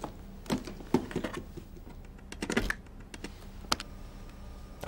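Irregular clicks and light knocks from hands working an open briefcase-housed stress-measuring machine and its controls, with one sharper click late on.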